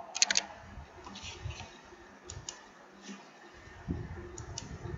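A few sharp clicks on a computer: a quick cluster of three about a quarter second in, then fainter pairs about two and a half and four and a half seconds in, with a soft low bump just before four seconds, over faint room hiss.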